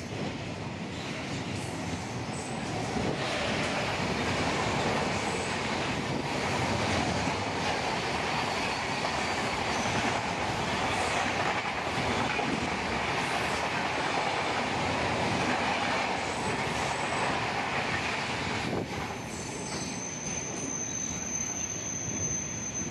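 Freight train of loaded flat wagons rolling steadily past, with a continuous rumble of wheels on the rails. There are faint high wheel squeals at times, and a clearer one near the end.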